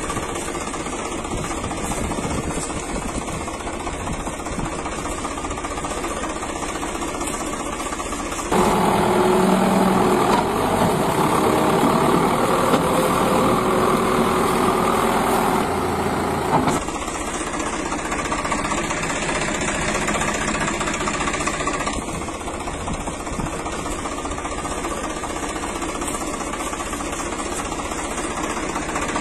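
Tractor engine sound running at a steady idle-like chug. From about eight and a half seconds in, a louder, fuller engine sound cuts in, and about eight seconds later it cuts back to the first.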